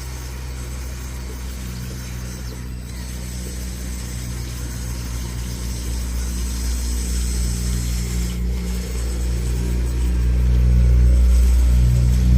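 Motor of a remote-controlled construction vehicle running steadily with a low drone, growing gradually louder, with a step up about ten and a half seconds in.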